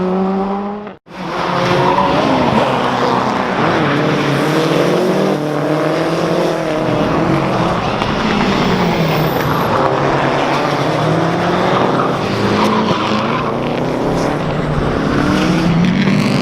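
Škoda Fabia R5 rally car's 1.6-litre turbocharged engine being driven hard, its pitch rising and falling again and again as it accelerates and brakes. The sound cuts out abruptly for a moment about a second in, then picks up again.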